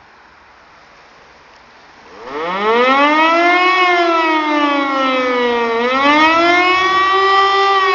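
E57 electric motor siren starting up about two seconds in: its wail climbs quickly in pitch, then sweeps slowly down and back up. This is the rising-and-falling 'Warnung' warning signal, sounded as a siren test. Before it starts there is only faint background noise.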